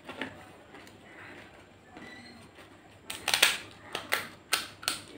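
Crisp, hollow fuchka (pani puri) shell being cracked open with the thumbs. There is a single click near the start, then a quick run of about six sharp crackles over the last two seconds.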